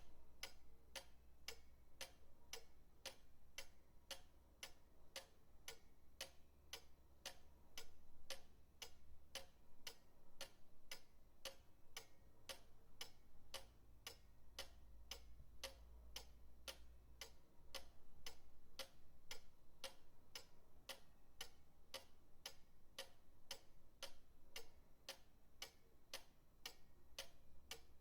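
Pendulum clock ticking steadily, about two ticks a second, over a faint low hum.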